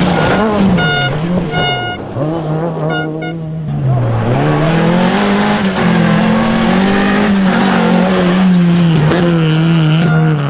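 Rally car engine at full attack, revving up and dropping back through gear changes and lifts, then holding high revs for several seconds near the end.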